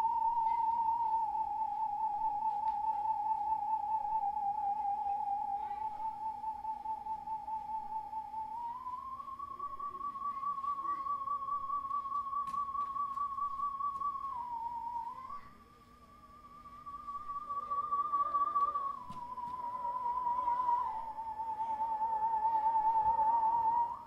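Music: a single pure, clear tone with a steady vibrato, holding long notes around one pitch and sliding up and down between them. It fades briefly about two-thirds of the way through, then returns.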